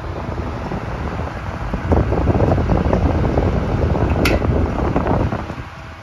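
Casablanca Modern table fan running, its air rushing over the microphone and growing louder from about two seconds in until near the end. There is one brief high click a little past the middle.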